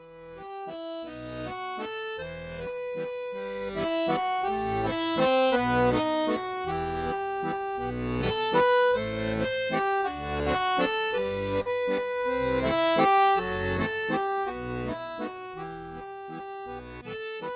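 Garmon (Russian button accordion) playing a folk tune: a melody over a regular pulse of bass-and-chord strokes, fading in at the start.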